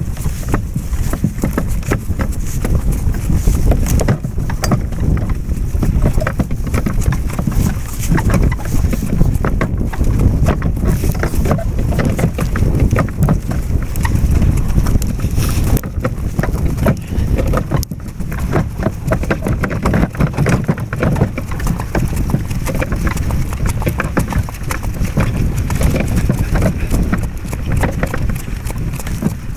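Hooves of a harnessed draft horse clopping at a walk on a snow-covered road, many hoofbeats in a steady run. A heavy low rumble of wind on the microphone lies under them.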